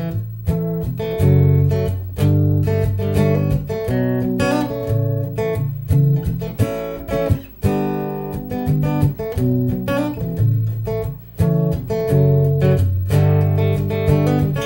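Acoustic guitar being strummed, chords ringing out in a steady repeating pattern.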